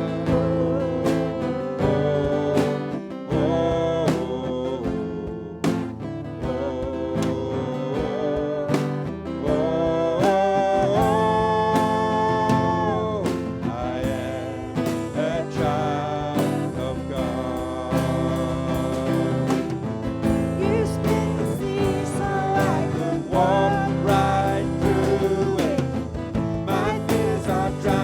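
Live worship music: a band with guitar accompanying a sung melody, with some long held notes in the middle.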